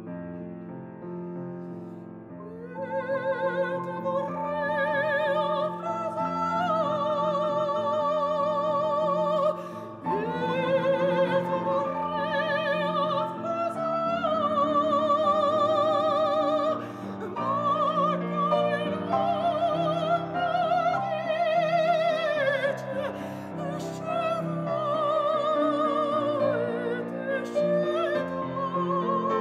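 A woman singing in operatic style with a wide vibrato, accompanied by a grand piano. The piano plays alone for the first two or three seconds before the voice comes in.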